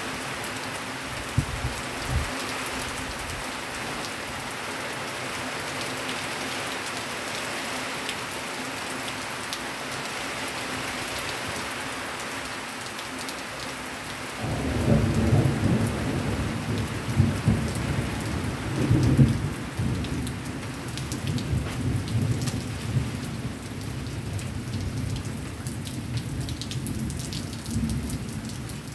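Heavy rain falling steadily. About halfway through, a long low roll of thunder sets in. It rumbles loudest over its first few seconds and dies away near the end.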